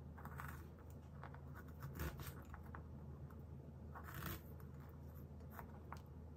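Kitchen knife slicing fresh ginger root on a cutting board: a series of short crisp cuts and light taps of the blade on the board, the loudest about two seconds in and about four seconds in, over a low steady hum.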